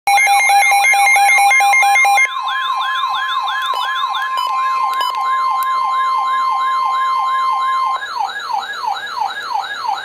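Midland weather radio sounding its warning alarm: about two seconds of rapid two-tone beeping, then a siren-like sweep falling over and over about four times a second. A steady high alert tone from the weather broadcast runs under it and stops about two seconds before the end.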